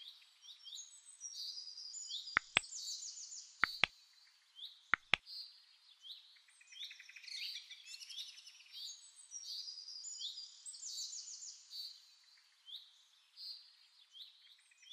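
Songbirds chirping and trilling continuously in high, quick phrases. Three pairs of sharp clicks stand out between about two and five seconds in.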